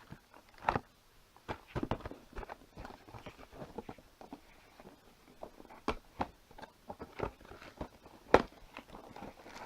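A small cardboard box being opened and its contents, cables and a microphone stand, handled: irregular taps, knocks and light rustles, with a sharper knock about a second in and another near the end.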